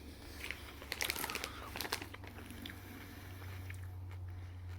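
Crunchy Cookie M&M's being chewed close to the microphone: crisp, irregular crunching of the hard candy shell, densest about a second in.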